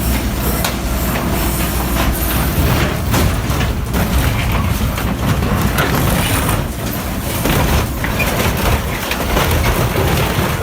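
A heavy diesel material handler runs under load while its grapple tears into a bus body, with repeated crunching and banging of metal. A steady low engine rumble runs underneath sharp knocks that come every second or so.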